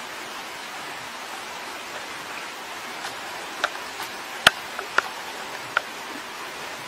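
Steady hiss of running water, with a few sharp clicks in the second half.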